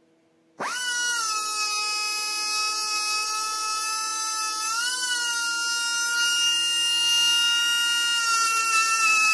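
High-speed rotary tool with a fine-grit rubber sanding drum spinning up sharply about half a second in, then running as a steady high whine with a hiss over it, polishing the inside of a chainsaw cylinder's exhaust port. The pitch lifts briefly about halfway through and sags slightly near the end as the drum bears on the metal.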